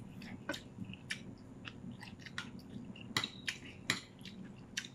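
Close-miked chewing of food, with irregular sharp wet mouth clicks and lip smacks, the loudest a little after three and four seconds in.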